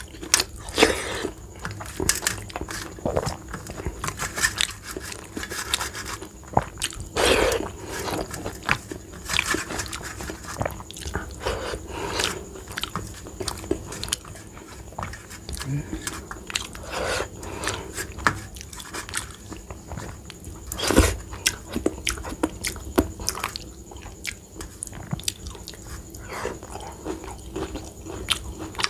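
Close-up chewing and mouth sounds of a person eating rice and dal by hand, as irregular smacks and clicks, with fingers scraping across a steel plate now and then. One click about two-thirds of the way through is louder than the rest.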